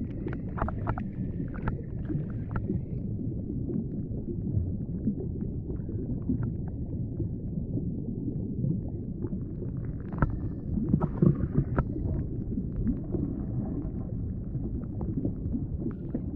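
Low, muffled rumbling noise with scattered short clicks and knocks, a little louder about two-thirds of the way through.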